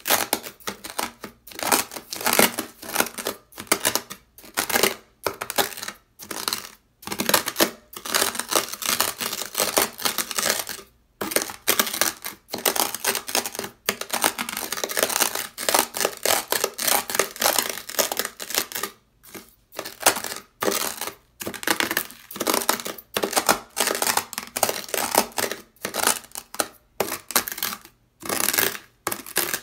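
Ceramic knife blade pressed and scraped through coarse dry beach sand, the grains giving loud, gritty crunches in quick repeated strokes. The crunching comes in dense runs broken by a few short pauses.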